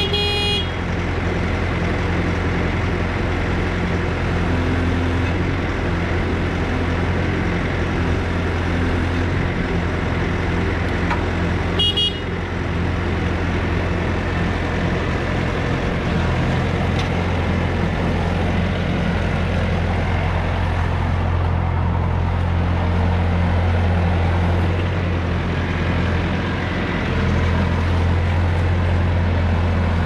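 Bobcat S530 skid steer's diesel engine running steadily as the machine is driven. A short high beep sounds at the very start and again about twelve seconds in.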